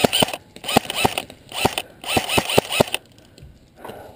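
Airsoft rifle firing single shots, about ten sharp cracks at an irregular pace of roughly three a second, stopping about three seconds in.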